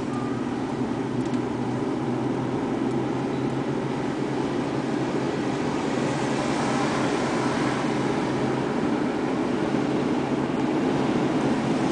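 Steady car noise heard from inside the cabin: an engine hum and tyre rumble, with a louder rush of hiss swelling briefly about six to eight seconds in.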